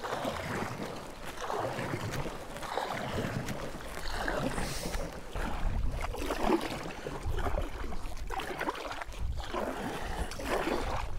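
Kayak paddle strokes splashing and dripping in lake water, with wind rumbling on the microphone.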